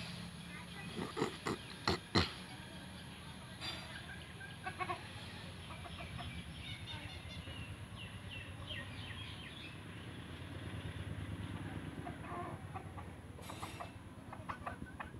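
Chickens clucking in short, scattered calls while foraging, over a steady low hum. A few sharp knocks or clicks stand out about one to two seconds in and again near the end.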